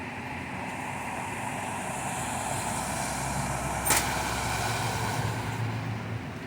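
A vehicle driving past through standing floodwater: engine hum and water spray swelling and then easing off. A sharp click about four seconds in.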